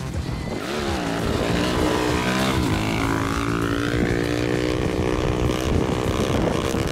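Classic Pontiac car engine revving hard under acceleration; its pitch dips and climbs again about a second in, then holds high and fairly steady.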